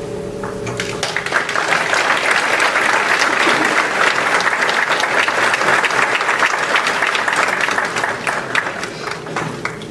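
Audience applauding: a dense patter of clapping that swells in about a second in, holds steady, and thins out toward the end.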